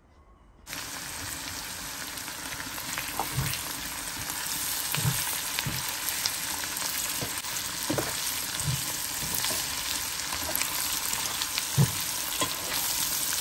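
Small whole potatoes and spices frying in oil in a pan, a steady sizzle that starts suddenly about a second in. A spatula stirring them knocks against the pan now and then.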